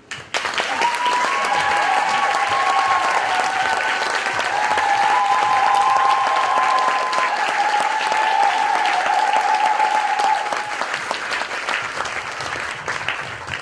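Theatre audience applauding, with long high whoops and cheers over the clapping. It starts suddenly and thins out toward the end.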